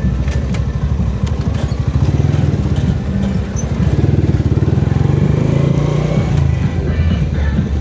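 Motorcycle engine running steadily up close, a dense low rapid pulsing.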